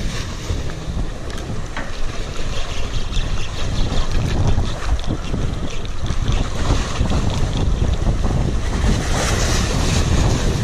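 Wind buffeting the microphone, a dense, uneven rumble, with the sea washing underneath.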